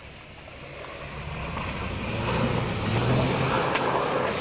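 Jeep Cherokee XJ on 33-inch tyres driving through deep standing water, its engine running steadily and growing louder as it approaches. From about halfway in, water splashing and sloshing off the wheels joins the engine.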